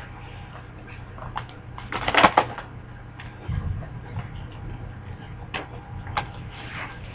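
Trading cards and plastic binder pages being handled: scattered light clicks and rustling, with a louder burst of rustling about two seconds in.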